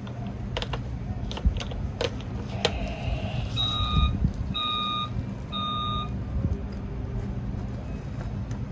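A few sharp plastic clicks, then a battery-powered toy truck's electronic beeper sounds three even beeps, each about half a second long and about a second apart, like a reversing warning.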